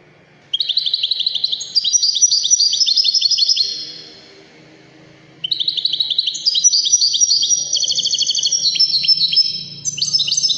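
European goldfinch singing: two long phrases of fast twittering trills and high tinkling notes. The first begins just after the start and lasts about three seconds; after a short pause the second begins about halfway through and runs on longer.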